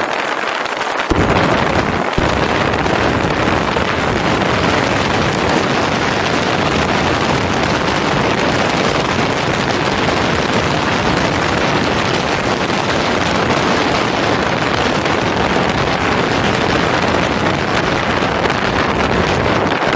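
Motorcycle riding along a road: loud, steady wind rush on the bike-mounted microphone, mixed with engine and tyre noise. A deeper wind buffeting comes in about a second in and then holds.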